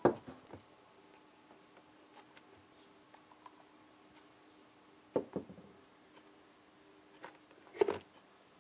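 Items being unpacked from a cardboard box and set down on a wooden desk: scattered light knocks and handling sounds, with a short run of louder knocks about five seconds in and the loudest cluster near the end, over a faint room hum.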